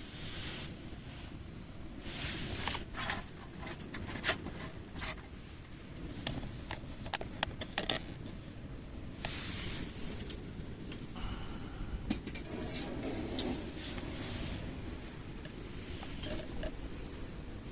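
Strong wind rumbling steadily on the microphone, with scattered clicks, knocks and short rustles of gear being handled.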